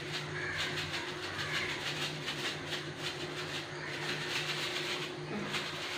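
Thin plastic packet crinkling and crackling in the hand as dried fenugreek leaves (kasuri methi) are shaken out of it into a pan of curry, over a steady low hum.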